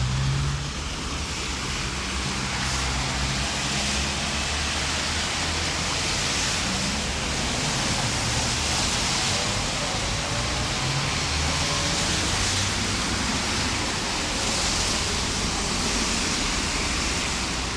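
Steady rushing of floodwater, a continuous even hiss, with a vehicle's low engine hum fading out in the first couple of seconds.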